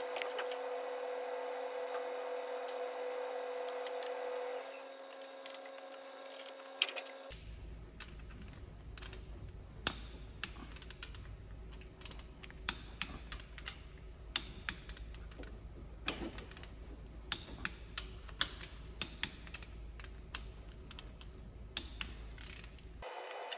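Irregular sharp metallic clicks and taps of hand tools and bolts being fitted and tightened while the timing-gear plate is bolted to a diesel engine's cylinder head. A steady hum runs for about the first seven seconds.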